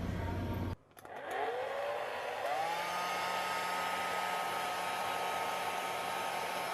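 A small electric motor starts up after a short gap, its whine rising in pitch as it spins up and then holding steady over a rushing of air.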